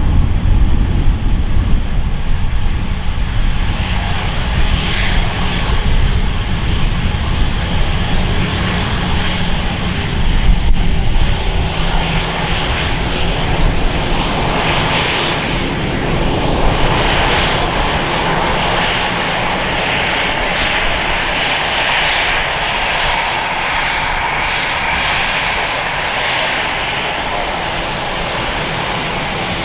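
Twin jet engines of an Airbus A320 running at taxi power as the airliner rolls past, a steady rumble and whine with a hiss that grows stronger in the second half.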